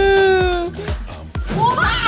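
Background music with a steady beat. A long held note sounds for about the first second, and a woman gives a short startled shriek near the end.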